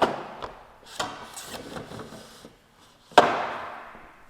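Sharp knocks of metal and wood parts on a SawStop table saw being handled, with rubbing in between. There are three knocks in the first second, and the loudest comes about three seconds in. Each one trails off over about a second.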